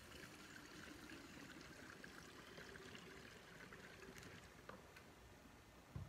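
Fresh gasoline trickling faintly from a plastic gas can's spout into a chainsaw's fuel tank.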